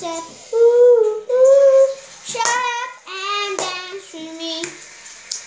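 A young girl singing, holding two long notes about a second in, with a sharp tap near the end.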